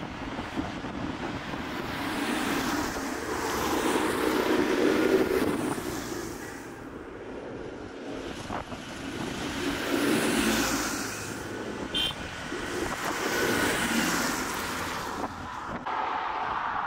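A procession of large modern farm tractors driving past one after another on a wet road: engines and tyre noise swell and fade three times as each passes close.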